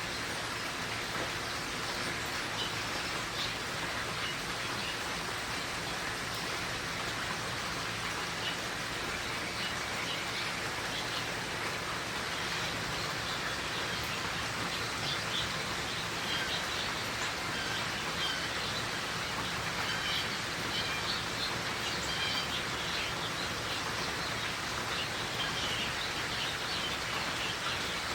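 Steady rain shower falling, with short high bird chirps scattered through it, more frequent in the second half.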